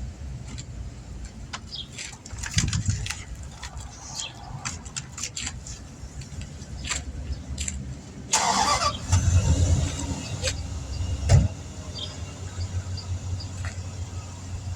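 A car engine running with a low rumble, with scattered clicks and knocks. About eight seconds in there is a short burst of hiss and the engine rumble grows louder for a few seconds.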